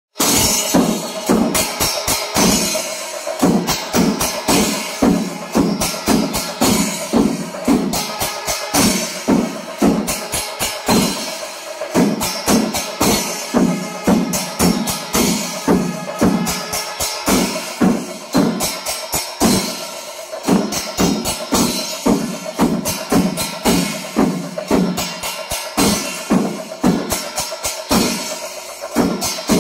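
Kerala chenda melam: chenda drums struck hard with cymbals, playing a fast, steady beat of about two strong strokes a second.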